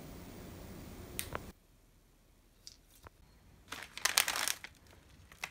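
Plastic packets of roasted laver crinkling as a hand picks them up and handles them, in a cluster of sharp crackles about four seconds in, after two light taps earlier on.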